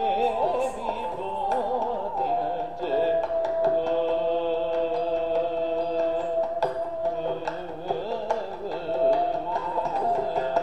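Carnatic music for a Javali in raga Kamas, Adi tala: a melody with quickly wavering, ornamented notes, settling into long held notes in the middle, with a few sharp percussive strokes.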